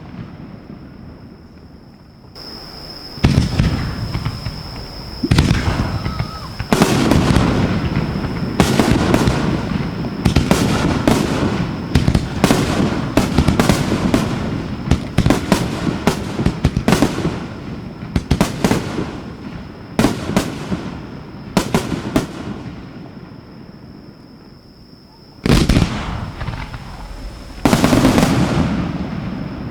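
Aerial fireworks shells fired from mortar tubes close by, a rapid string of loud booms and crackles. The booms thin out and pause briefly, then two more big booms come near the end.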